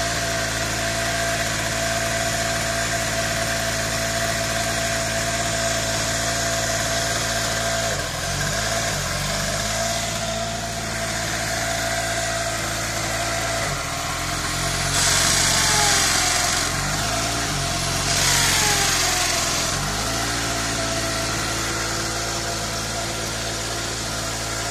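Small two-stroke biogas-fuelled generator engine running steadily. About halfway through, a corded electric drill powered by the generator runs in two bursts of a few seconds each, and the engine's note shifts as the drill loads it.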